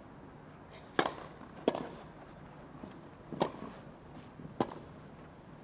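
Tennis rally: a ball struck by rackets, four sharp hits at uneven intervals over a quiet crowd.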